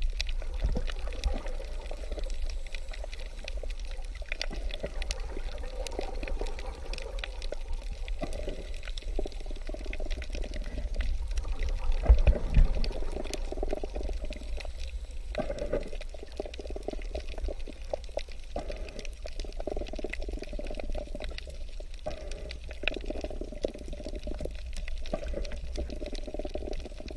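Water sound: a steady churn of moving, bubbling water over a low rumble, with many scattered small clicks, briefly louder about halfway through.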